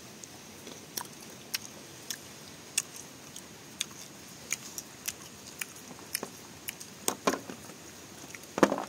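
Close-up crunchy chewing of young tamarind pods: sharp crisp crunches about twice a second, with a louder crunch near the end.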